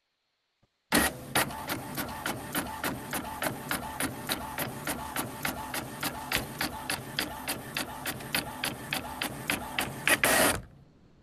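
A machine running with a rapid, regular mechanical clicking, about four clicks a second. It starts suddenly about a second in and cuts off near the end.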